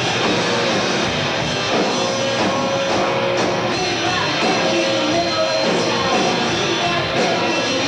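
Live rock band playing: electric guitar and drums, with a woman singing into a microphone.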